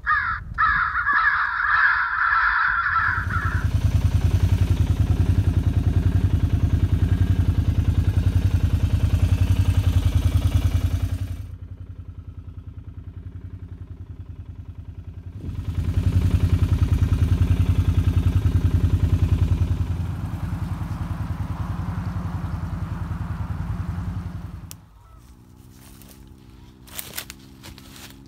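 A crow cawing for the first three seconds or so. Then a loud, low, steady rumble takes over, drops away for a few seconds, comes back, and gives way near the end to a quiet low hum with a few sharp clicks.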